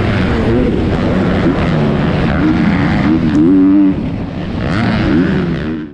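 250-class motocross bike's four-stroke engine revving hard through the gears, its pitch climbing and dropping over and over, with a short throttle-off about two-thirds of the way through before it picks up again. The sound cuts off at the very end.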